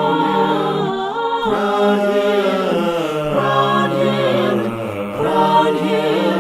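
Congregation singing a hymn a cappella in several parts, voices holding and moving through the long drawn-out 'crown' of the refrain.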